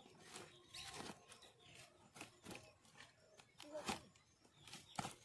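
Faint, scattered clicks and rustles of small metal parts and packaging being handled, with the two loudest knocks near four seconds in and near the end.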